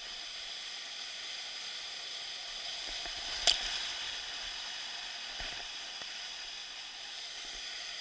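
Steady rushing hiss of flowing water, with one sharp click about three and a half seconds in.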